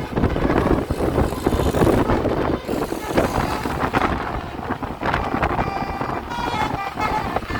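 Bus and road traffic running, with wind buffeting the microphone. A multi-tone telolet horn sounds in short bursts in the second half.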